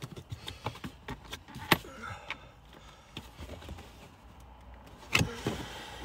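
Plastic interior trim of a Toyota 4Runner being handled and worked loose by hand, with scattered clicks and knocks: a sharp click a little under two seconds in and a louder clatter about five seconds in.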